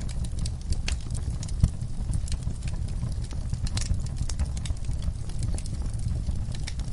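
Wood campfire crackling: frequent irregular sharp pops and snaps over a steady low rumble, with the loudest pop about a second and a half in.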